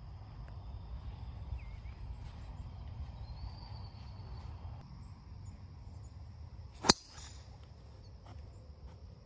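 A single sharp crack of a golf driver striking the ball off the tee, about seven seconds in.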